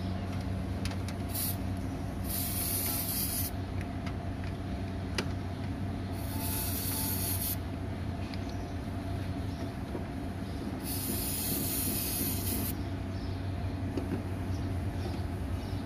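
Aerosol spray can hissing in three separate bursts of one to two seconds each as it cleans the pins of an unplugged engine control unit wiring connector, over a steady low hum.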